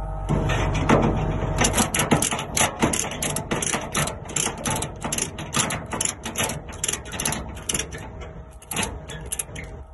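Ratchet mechanism clicking in a steady run of sharp clicks, about three or four a second. A low steady hum cuts off about a second and a half in.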